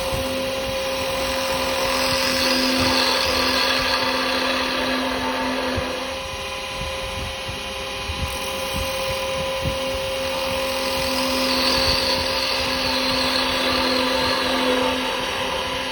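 Wood lathe running with a steady motor hum while a carbide chisel cuts a spinning yew blank. The cut is a hiss that eases off about six seconds in and picks up again around ten seconds.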